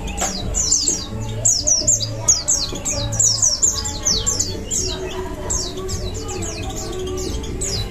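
Several pleci (white-eyes) singing a fast, busy chatter of high, quick downward-slurred chirps, over background music.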